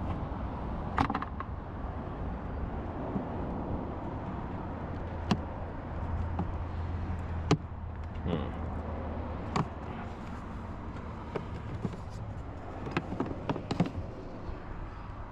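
Scattered sharp clicks and knocks from hands working at a car's fuse box and its plastic trim, over a steady low hum.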